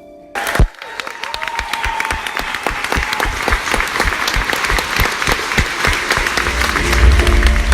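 Theatre audience applauding, the clapping building up quickly after a sudden loud hit about half a second in. Music with a deep bass comes in under the applause near the end.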